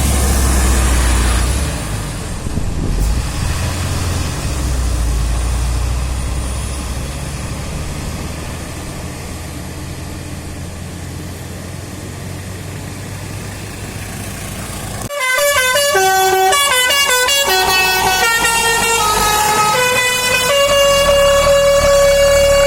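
Low vehicle engine and road rumble, then about 15 seconds in a bus's Basuri telolet horn bursts in, playing a multi-note tune of stepping pitches and ending on a long held note.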